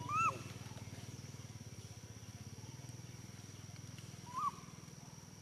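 Baby macaque giving two short coo calls, each rising then falling in pitch, one right at the start and another about four seconds later. A steady low hum and a thin steady high tone run underneath.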